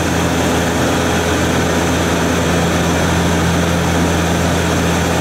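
Bombardier Q400's turboprop engines and propellers droning steadily, heard inside the passenger cabin: a constant low hum with a steady rushing noise over it.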